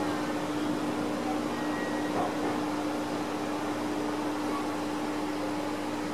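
Steady mechanical hum with a constant droning tone and an even hiss over it, like a fan or air-handling unit running.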